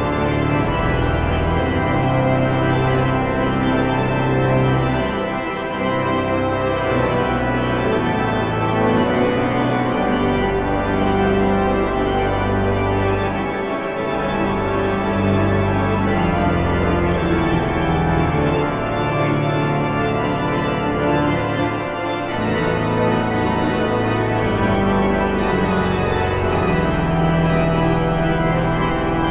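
Pipe organ playing slow, sustained chords over a deep bass, the harmony shifting every second or two.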